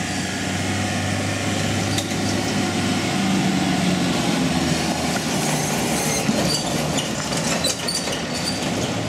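Pickup truck towing a livestock trailer driving past, its engine running steadily under the trailer's rattle, with a few light clinks near the end.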